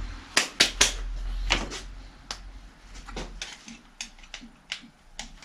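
Bosch PSS 250 AE orbital sander being taken apart by hand: a series of sharp, irregular clicks and taps from its plastic housing and small parts being handled, the loudest in the first second.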